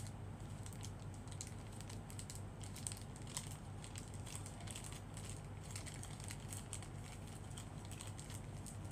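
Clear plastic wrapping crinkling and crackling in many small irregular crackles as it is unwrapped from a pair of eyeglasses by hand, over a steady low hum.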